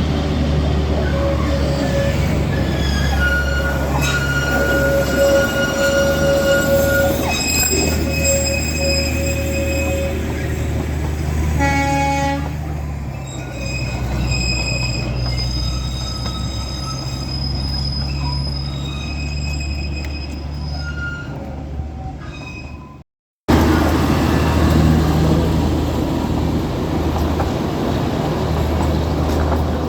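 Darjeeling Himalayan Railway toy train running with a steady low rumble, its wheels squealing in long, high, shifting tones. A short horn toot comes about twelve seconds in. The sound drops out for a moment about two-thirds of the way through, then the train noise resumes.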